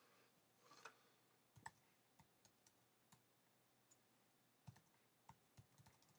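Near silence with a dozen or so faint, irregularly spaced small clicks.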